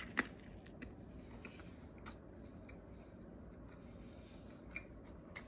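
Quiet room hiss with scattered faint clicks and small handling noises, and one sharper click just after the start.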